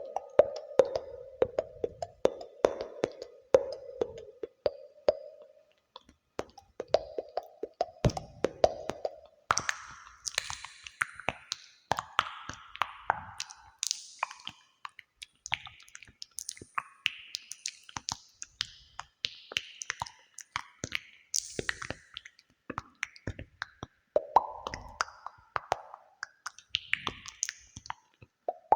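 ASMR clicking and popping sounds made close to the microphone, many quick sharp clicks with a cave-like echo effect added. A steady low tone runs under them for the first few seconds, and from about a third of the way in, short higher-pitched sounds come and go among the clicks.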